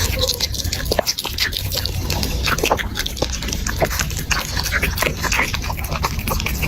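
A dog heard close up: a dense run of short clicks and brief squeaky sounds over a steady low rumble.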